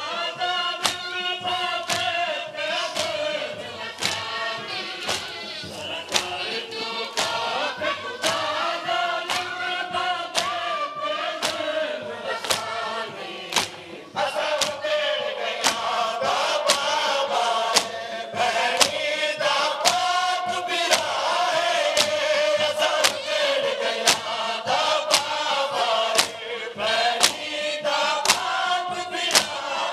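A crowd of men chanting a noha, a Shia lament, together, over a steady beat of sharp slaps: the matam chest-beating that keeps time with the chant.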